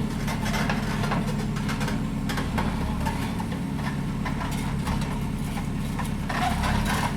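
Heavy engine running steadily at idle, with light knocks now and then.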